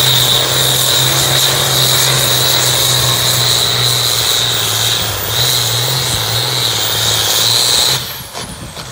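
Red farm tractor's diesel engine at full throttle under heavy load, dragging a weight-transfer sled down the pull track, with a steady high whine over the engine noise. The sound drops off abruptly about eight seconds in as the pull ends.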